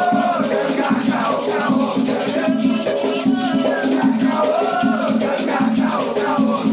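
Batuque ritual music: voices singing a chant together over a continuously shaken rattle.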